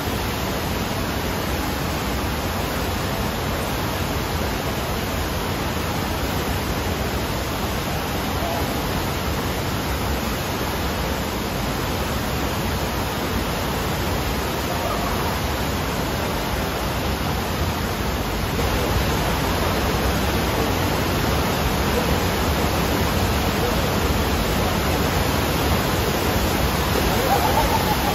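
Steady rush of water from an indoor sheet-wave surf simulator, its pumped sheet of water streaming fast up the padded slope. It gets a little louder about two-thirds of the way through.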